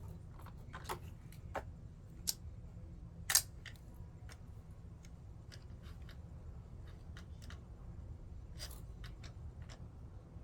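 Scattered clicks and light taps of hands and tools working at a stuck plastic part on a chainsaw, the loudest about a third of the way in, over a steady low hum.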